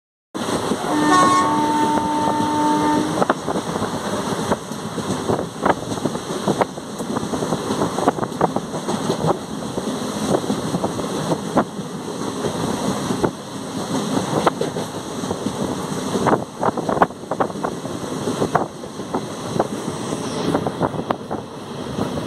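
Express passenger train running at speed, heard from on board: a steady rumble with wind noise and irregular clacks of the wheels over rail joints. About a second in, a horn sounds one steady note for about two seconds.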